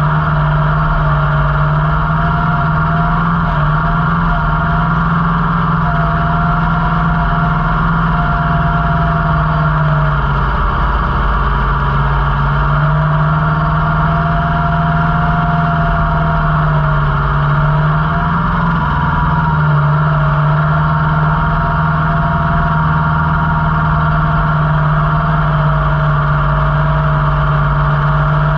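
Kubota L5018 tractor's diesel engine running steadily at working revs. Its pitch sags briefly twice, around ten and seventeen seconds in, then picks back up.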